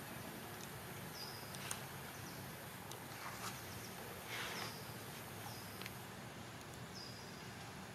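Quiet outdoor ambience: a steady background hiss with a few short, high chirps a second or more apart, a single sharp click, and a brief rustle about halfway through.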